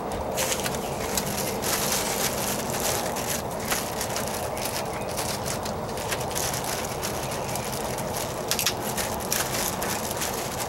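Clear plastic bag crinkling and rustling as a speaker is handled and unwrapped from it, with many small crackles over a steady background noise.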